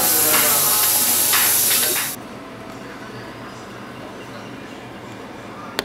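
A loud steady hiss, strongest in the highest pitches, cuts off abruptly about two seconds in. It leaves quiet room tone and a single short click near the end.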